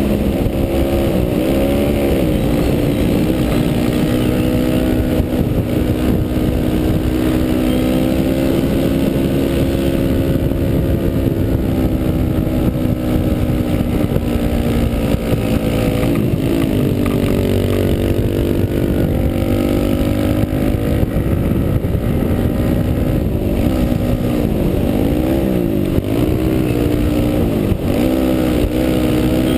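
A small dirt bike's single-cylinder engine heard from the rider's helmet, running hard at steady revs along the road. Its pitch drops and climbs back a few times, near the start, about halfway through and near the end, as the throttle is eased and reopened. There is a constant rush of wind noise.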